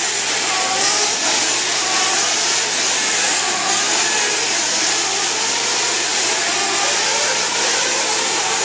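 Several 1/8-scale nitro RC buggy engines (small glow-fuel engines) running and revving over one another, their pitches rising and falling continuously.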